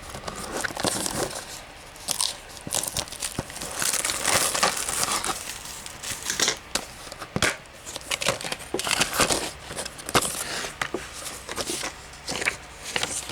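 Plastic shrink-wrap being torn and peeled off a Blu-ray case: continuous crinkling with many small snaps and clicks.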